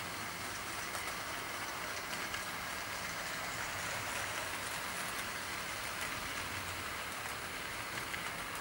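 00 gauge model train running along its track, heard from a camera riding on the train: a steady rushing hiss with a low hum and a few faint clicks of the wheels over the rails.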